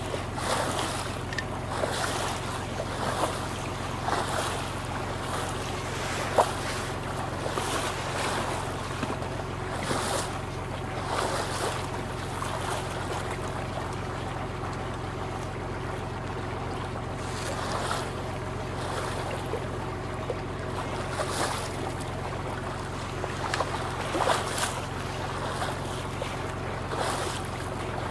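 An old wooden fishing boat's engine running with a steady low drone, while water swishes and splashes along the hull every second or two. One sharp knock about six seconds in.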